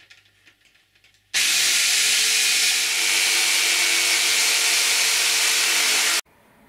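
Electric jigsaw sawing a curved profile out of a sheet of board: a steady sawing noise over the motor's hum. It starts about a second in and cuts off abruptly near the end.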